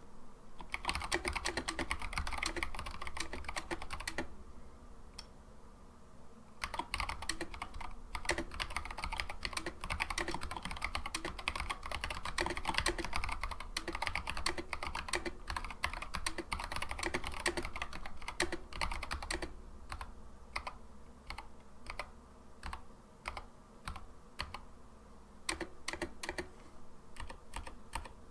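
Typing on a Noppoo Doomhammer Choc 87 mechanical keyboard with Kailh Box Heavy Burnt Orange switches and SA PBT doubleshot keycaps. Fast, continuous typing breaks off for a couple of seconds about four seconds in, resumes, then gives way to slower, separate keystrokes for the last third.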